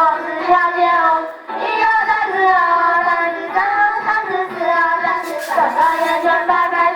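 A high, child-like voice singing a song over instrumental music, with held, gliding notes and a brief break about a second and a half in.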